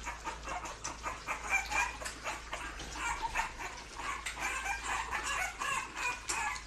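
A litter of puppies eating from bowls: a dense run of quick wet lapping and smacking clicks mixed with small high squeaks and grunts.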